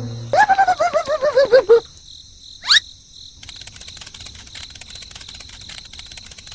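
Comedic sound effects: a warbling pitched tone that pulses about eight times while falling in pitch, a quick rising whistle about three seconds in, then a steady, rapid cricket chirping.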